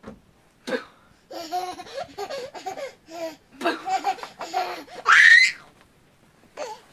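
A baby laughing in a string of short, hearty giggles, with a loud, high, rising squeal about five seconds in.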